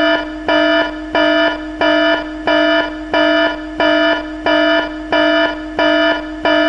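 Electronic alarm tone pulsing about one and a half times a second: each pulse a buzzy steady pitch with many overtones, loudest at its onset.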